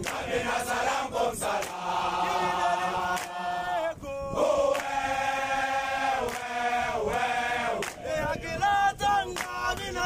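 A group of South African Army soldiers singing together in a chant, with long held notes in the middle and short breaths between phrases about four and eight seconds in.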